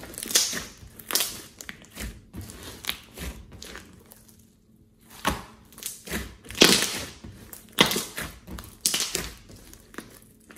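Hands squeezing and kneading a large lump of slime: squelching and popping in irregular bursts, with a lull about four to five seconds in.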